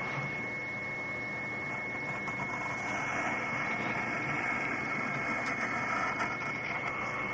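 A drawing tool scratching across paper in strokes, louder in the middle, with a few light taps, over a steady high electrical whine.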